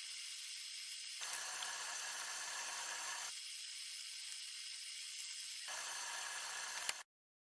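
Steady background hiss with no distinct events. Its low end changes abruptly three times, at about one, three and six seconds in, and it cuts off to dead silence about seven seconds in.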